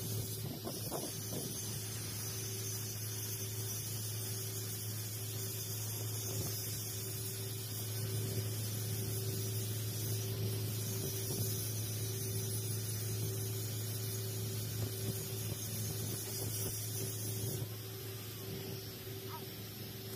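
TIG welding arc on duplex stainless steel pipe: a steady hiss over a constant low hum. The hiss quietens near the end.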